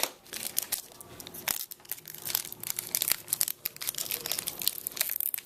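Plastic wrapper of a Panini trading card pack crinkling and tearing as it is worked open by hand, a stretch of irregular crackles.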